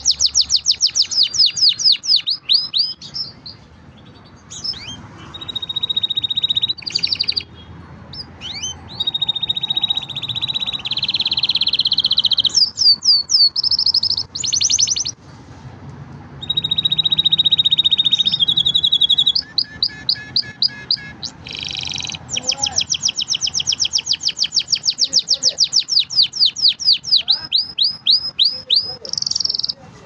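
Domestic canary singing a long song: fast trills of rapidly repeated notes alternate with steady held notes, with a few short pauses between phrases.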